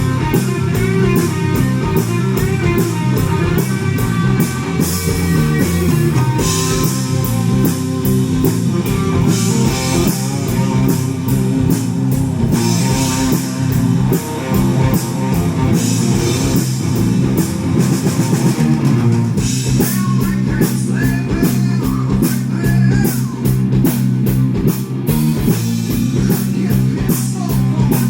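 A progressive rock band playing: electric guitar and bass over a drum kit, with a quick steady cymbal beat and several crash-cymbal swells along the way.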